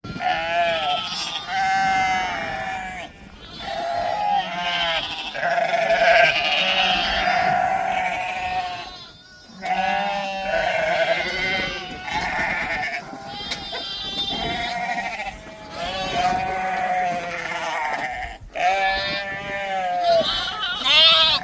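A herd of goats bleating, many high-pitched calls overlapping almost without a break, with short lulls about 3 and 9 seconds in.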